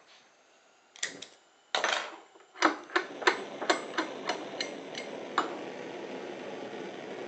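Bunsen burner being lit: a couple of knocks, then a run of sharp clicks about three a second, while the steady hiss of the burning gas comes up and holds once the flame is going.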